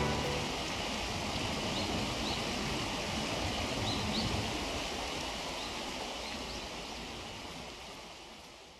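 Steady rushing outdoor ambient noise with a few faint, short high chirps, some in pairs, fading out near the end.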